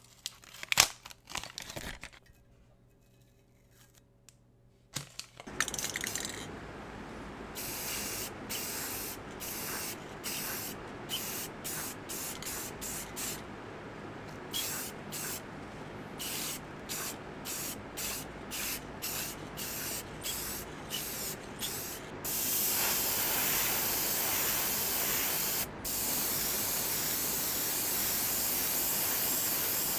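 Airbrush spraying paint in many short bursts, then in long continuous passes near the end with one brief break. A steady lower noise runs under it, and a few clicks of masking tape being handled come at the start.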